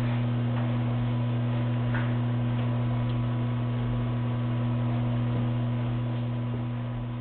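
Steady low electrical mains hum with a fainter higher overtone, fading away near the end.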